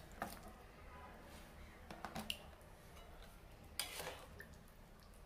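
Faint clinks and knocks of dishes being handled, a few light strikes spread over several seconds.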